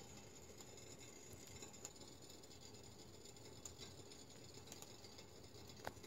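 Faint, sparse crackles of a fire burning inside a stove, over a low steady hiss, with one sharper crack near the end.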